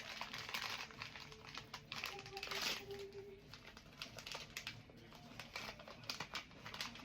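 Crinkling and rustling of blind-box packaging being handled and opened, with many small clicks and taps.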